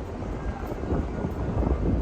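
Wind buffeting the microphone: an uneven, gusty low rumble that builds slightly.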